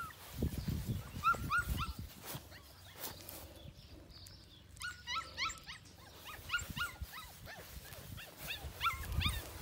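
Goldendoodle puppy yipping and whimpering in runs of three to five short, high cries, repeated several times. Low thumps in the first two seconds.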